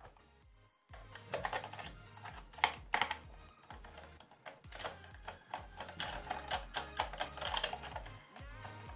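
Irregular clicks and taps of a small screwdriver and fingers working on the plastic case of a portable AM/FM radio as it is opened, over background music. The first second is nearly quiet before the clicking starts.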